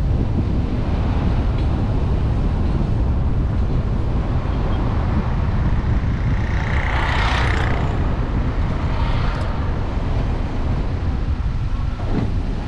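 Car driving along a road: steady low road rumble with wind rushing over the microphone. About seven seconds in there is a brief louder rush of noise.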